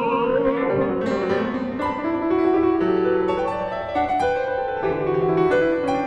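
Music: solo piano playing sustained notes and chords. An operatic singer's held, wavering note fades out in the first moment.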